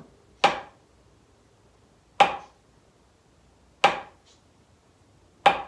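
Wooden drumsticks striking a drum practice pad four times, slow and evenly spaced just under two seconds apart, each stroke a single sharp crack that dies away quickly.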